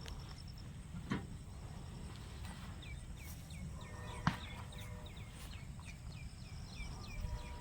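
A bird calling in a quick run of short falling chirps, about three a second, over faint outdoor background noise, with a sharp click about four seconds in.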